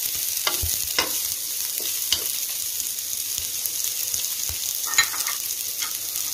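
Sliced carrots, green capsicum and onion sizzling in oil in a wok, with a wooden spatula stirring and scraping against the pan in a few short strokes; the loudest is about five seconds in.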